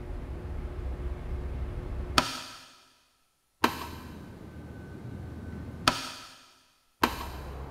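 Edited sound-effect hits: a sharp impact about two seconds in and another near six seconds, each ringing out and fading to silence. Between them a steady low rumble cuts in abruptly, once with a sharp hit of its own.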